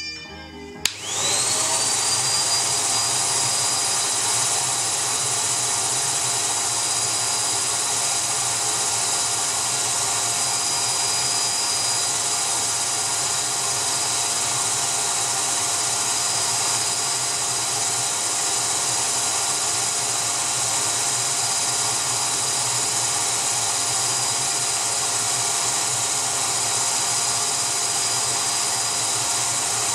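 A vacuum cleaner motor in the base of a DIY record cleaning machine, switched on with a click about a second in, spinning up with a rising whine and then running steadily, drawing suction through the vacuum arm resting on the record.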